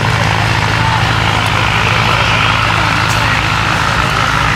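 Junkers Ju 52/3m's three radial engines running steadily at low taxiing power, a deep, even propeller drone.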